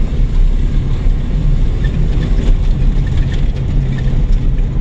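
Chevrolet S10 4x4 pickup driving, heard from inside the cab: a steady low engine and road rumble, with faint rattles from the front end. The owner takes the drone for a worn front wheel bearing and suspects something loose in the front end, such as a sway bar.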